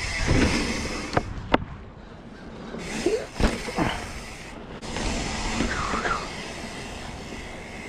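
Mountain bike rolling over dirt and gravel: steady tyre rumble and rattle of the bike, broken by a few sharp knocks, the loudest about three and a half seconds in.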